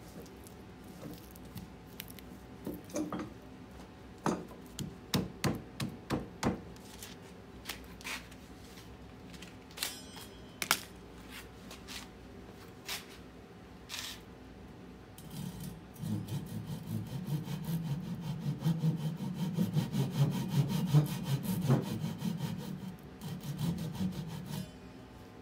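Handsaw cutting down into the end of an upright birch log, along the grain, in steady back-and-forth strokes that begin about two-thirds of the way through. Before it come scattered knocks and taps of wood and tools being handled.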